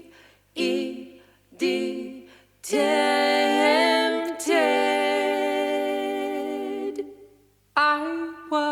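Background music: a solo singing voice with no accompaniment, a few short phrases and then one long held note with a slight vibrato.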